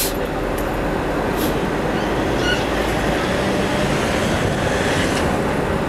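Tram standing at a stop with its onboard equipment running, a steady rushing hum mixed with city street noise. A short faint high squeak comes about two and a half seconds in.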